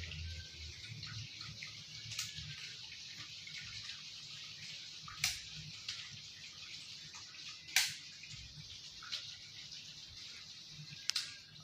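Steady faint hiss with a low hum under it, broken by about six sharp isolated clicks scattered through, the loudest a little before the end.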